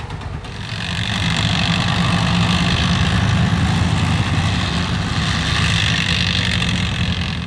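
Engine and running gear of a tracked armoured vehicle driving across open ground, getting louder about a second in and easing a little near the end.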